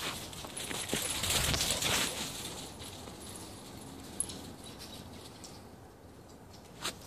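A Rottweiler puppy's paws crunching and scampering through snow as it runs, a quick run of crackly steps for the first two seconds or so, then fainter, with a couple of single crunches later on.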